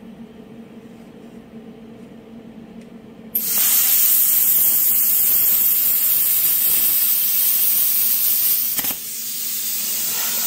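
Plasma cutter: a low steady hum, then about three seconds in the arc strikes suddenly with a loud, harsh hiss as the torch cuts a steel plate at 20 amps. About five seconds later the arc cuts off with a click, leaving a softer steady hiss of air from the torch.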